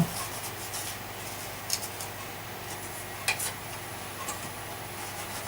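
A few faint, scattered clicks and taps of vacuum cleaner parts being handled, over a low steady hum.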